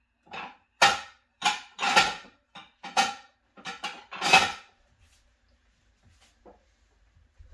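Dishes clinking and clattering against each other and the dishwasher rack as bowls and plates are lifted out: about ten sharp knocks in quick succession, stopping about two thirds of the way through.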